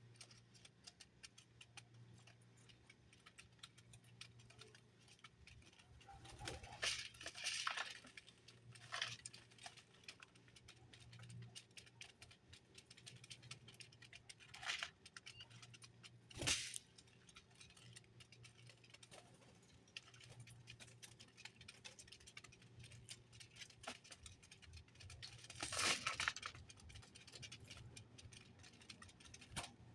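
Small birds moving about at a feeder: many light ticks and scratches, likely pecking and scrabbling, with a few short louder rustles scattered through, over a faint steady hum.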